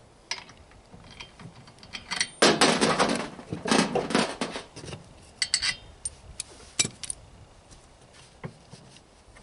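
Loose metal hand tools clattering and clinking as they are sorted through: a dense burst of clatter between about two and five seconds in, then a few scattered clicks.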